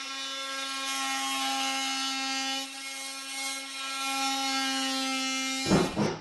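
A power saw running steadily with a constant whining hum, cutting into wood. It stops near the end, and a few loud knocks follow.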